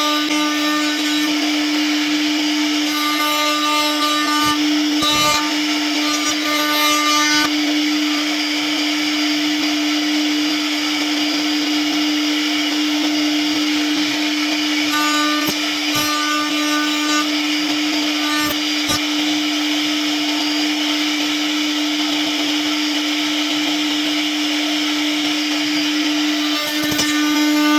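CNC router spindle running with a steady whine while its bit carves wood, the cutting sound changing in stretches a few seconds long as the bit moves along the design.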